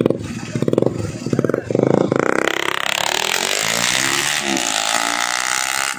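Bajaj Pulsar NS160 single-cylinder engine through an aftermarket Akrapovic exhaust with bend pipe and the dB killer removed, so it runs loud and open. It revs in short surges for about two seconds, then accelerates away steadily for a fly-by, its pitch dropping around the fourth second.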